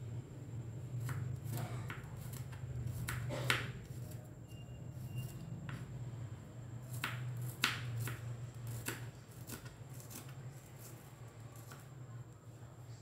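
Kitchen knife cutting garlic cloves and shallots on a plastic cutting board: irregular sharp taps of the blade meeting the board, the loudest about three and a half and seven and a half seconds in, over a steady low hum.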